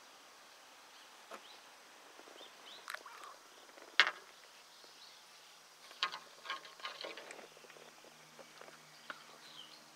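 A few sharp clicks and knocks, the loudest about four seconds in and a quick cluster around six to seven seconds in, over quiet outdoor ambience with a few faint bird chirps. A faint steady low hum comes in about six seconds in.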